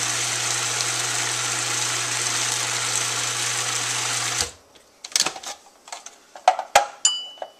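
Electric food processor motor running steadily, blending a raspberry and cream ice cream mixture, then switched off abruptly about four and a half seconds in. A few clicks and knocks follow as the lid comes off, with a short ringing clink near the end.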